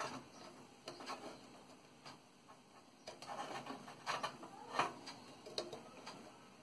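Light irregular clicks and scrapes of plastic connectors and wires being handled as a SATA cable is pushed into its socket inside a desktop computer case, the loudest click a little before five seconds in.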